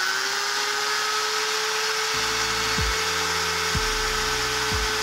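Electric hand drill running steadily at full speed, drilling a hole through the thin sheet-metal frame of a fluorescent tube light fitting, with an even motor whine. Background music comes in underneath about two seconds in.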